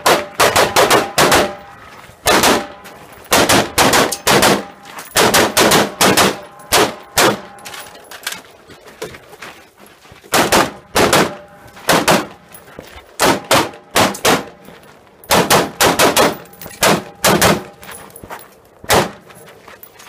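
Rapid gunfire from a practical-shooting competitor: quick pairs and strings of several shots with short pauses between them as targets are engaged, with steel targets ringing after some hits.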